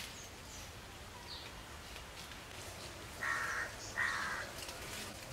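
A bird gives two harsh calls, each about half a second long and about a second apart, in the second half. Earlier, faint, brief high chirps from smaller birds can be heard.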